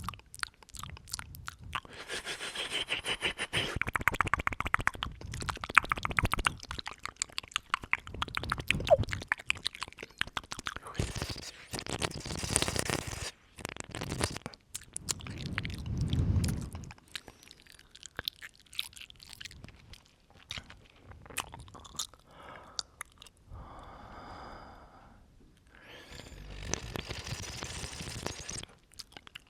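Close-up ASMR mouth sounds: rapid wet clicks and smacks of the lips and tongue, with a few long breaths blown onto the microphone.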